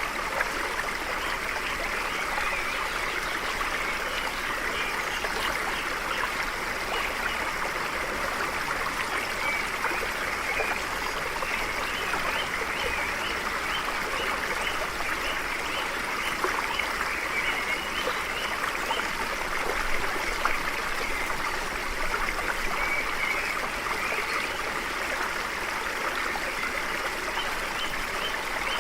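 Stream water flowing steadily, an even rushing trickle with no pauses.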